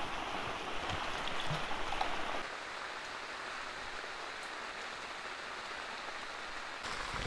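Heavy rain falling on the tent, heard from inside it as a steady hiss. It becomes a little softer and thinner about two and a half seconds in and swells again near the end.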